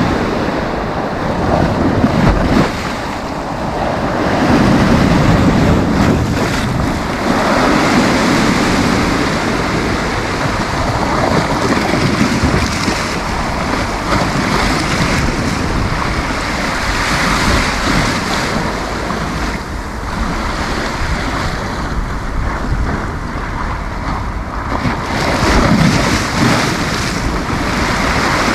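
Sea waves breaking and washing on a beach, a continuous rushing surf that swells and eases every few seconds, with wind buffeting the microphone in a low rumble.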